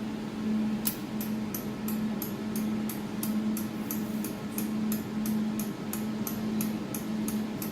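A jewelry laser welding machine humming steadily, with a run of light, evenly spaced clicks about three a second starting about a second in, as its laser-positioning adjustment knob is turned back.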